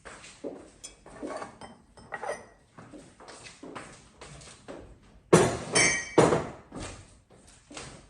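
Hard household items clinking and clattering as they are handled, with two louder ringing clanks about five and six seconds in.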